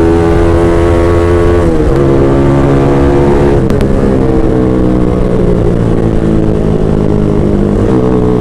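Motorcycle with an open Villain shorty exhaust running loud under way. The engine note holds steady and dips briefly before settling again about two seconds in, near four seconds and near eight seconds.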